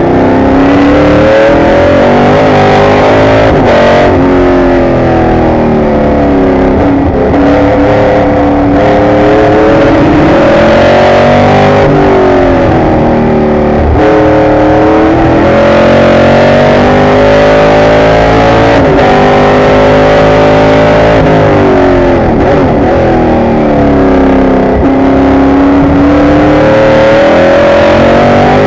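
Onboard sound of a 1968 McLaren M6B Can-Am race car's V8 at racing speed. The engine rises in pitch through the gears, drops back at each shift and on braking into corners, then climbs again, lap after lap.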